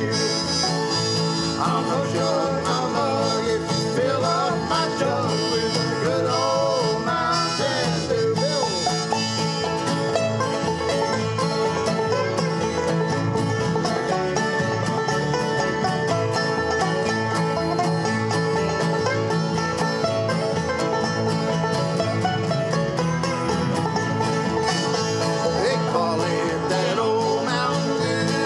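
Bluegrass band playing live on several acoustic guitars and a five-string banjo, a steady, continuous strummed and picked ensemble.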